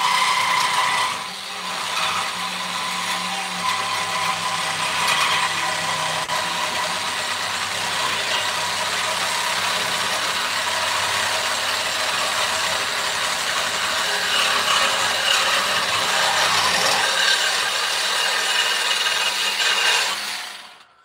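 A small battery-powered cutting tool running steadily under load as it cuts into steel stock, with a brief dip about a second in, then stopping just before the end. The little cordless tool is handling the cut.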